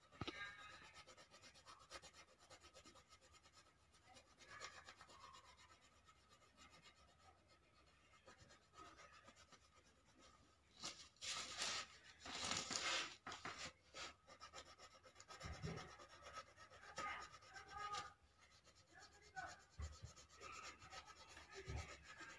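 Coloured pencil scratching and rubbing on paper in faint shading strokes, with a louder run of strokes about halfway through and a few soft knocks in the later part.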